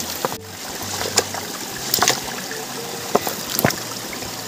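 Shallow stream water trickling steadily, with several sharp clacks of stones being shifted and knocked together by hand in the water.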